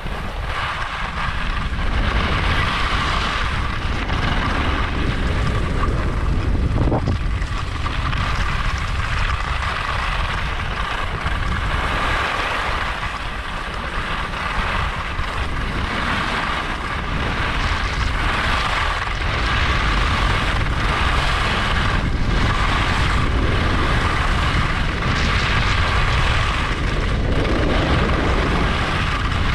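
Steady wind rushing over the camera microphone, with skis sliding and scraping on groomed snow during a fast downhill run.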